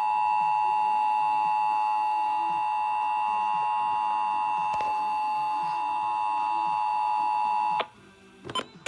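Emergency Alert System two-tone attention signal (853 Hz and 960 Hz sounded together) on a broadcast relay, held steady for about eight seconds and cutting off suddenly near the end. It marks the start of the monthly EAS test, with the spoken test message following it.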